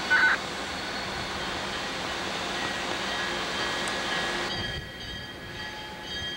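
CSX diesel-electric road-switcher locomotives rolling slowly through a rail yard with their engines running. A short, loud, high-pitched sound comes right at the start, and the sound changes abruptly about four and a half seconds in.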